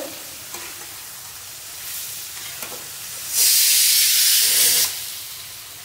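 Pressure cooker cooking moong dal lets off its whistle: a loud rush of hissing steam about three and a half seconds in, lasting about a second and a half, the last of the two whistles counted to cook the dal. Before it, beans sizzle quietly in an aluminium kadai with a couple of spatula scrapes.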